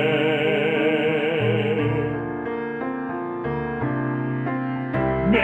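A solo singer holds the last note of a hymn verse with wide vibrato over piano for about two seconds. The piano then plays a short interlude of chords alone, and the voice comes back in near the end.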